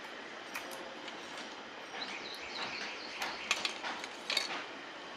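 Tape being pulled and pressed around the wires at the end of an LED tube light's shell: scattered crackles and small clicks, the sharpest a little past three and again past four seconds, over a steady hiss.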